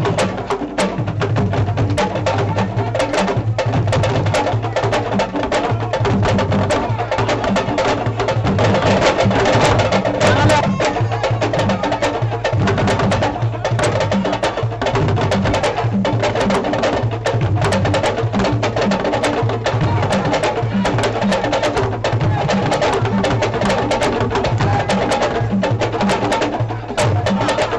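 Live hand drums played fast and densely, with sharp, rapid strokes over a steady low pulse.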